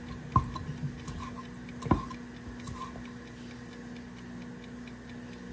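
Kitchen knife cutting on a cutting board, giving a few sharp clicks, the loudest about half a second and two seconds in, with lighter ticks between. A steady low hum runs underneath.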